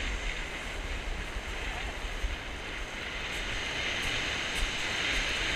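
Heavy surf breaking and washing up a steep shingle beach, with strong wind buffeting the microphone. The wash grows a little louder near the end.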